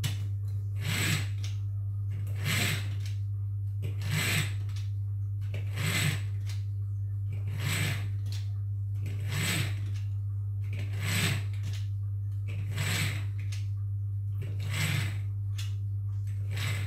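A short mechanical sound repeating evenly about every 1.7 seconds, over a steady low hum.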